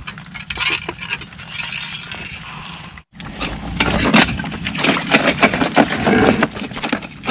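Stone slabs being knocked, broken and scraped apart by hand to open up a mud crab's hiding hole. A dense run of sharp knocks and clacks fills the second half.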